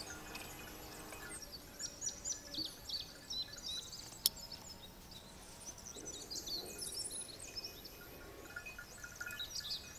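Small birds chirping and twittering in many short calls, with a single sharp click about four seconds in.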